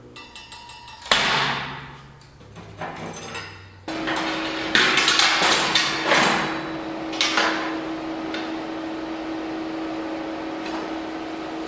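Hammer blows on steel, each strike ringing on as the metal vibrates: one hard blow about a second in, then a run of strikes after a steady machine hum starts about four seconds in.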